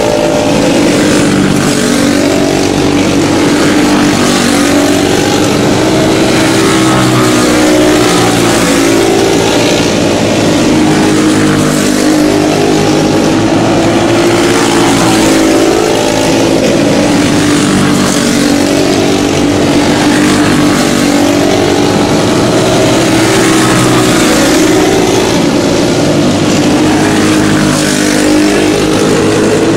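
A field of racing karts with single-cylinder four-stroke Briggs & Stratton Animal engines running hard on a dirt oval. Several engines are heard at once, their pitches rising and falling over and over as the karts lap.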